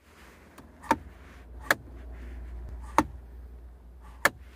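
Four sharp plastic clicks from the small lidded compartment under the rear centre-console vents of a Nissan Skyline as it is opened and pushed shut by hand, with low handling rumble between the clicks.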